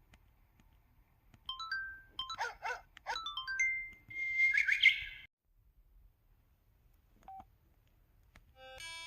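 KTF-TR2000 mobile phone's camera sound effects: a run of short synthetic chirps and gliding beeps, then a held electronic tone with a noisy burst that cuts off suddenly. After a pause comes a single short beep, and near the end a stepped ringtone-style melody begins.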